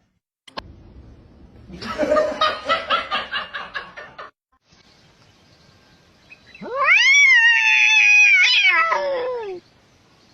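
A cat yowling: one long drawn-out call that rises, holds and falls away, lasting about three seconds. Before it comes a rapid pulsing sound lasting about two seconds.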